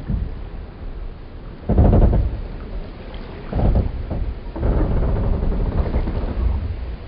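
Wooden boats and pier timbers groaning in low creaks, three times in a row, the last about two seconds long, over lapping water.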